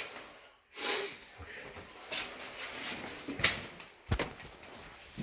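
A few scattered clicks and knocks with rustling between them, the sound of things being handled, with a sharp click about three and a half seconds in and two quick low knocks just after.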